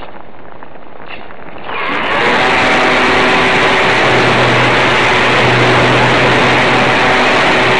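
Electric motor and propeller of a model aeroplane heard from a camera on board, over wind rush; a little under two seconds in, the motor is powered up and the sound jumps to a loud, steady whir that holds.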